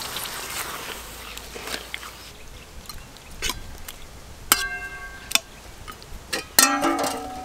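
Flat metal spatula stirring chicken curry in a metal kadai: soft scraping, then a few sharp clinks of the spatula against the pan, the strongest about four and a half and six and a half seconds in, each leaving the pan ringing. A faint hiss from the simmering gravy fades over the first second or two.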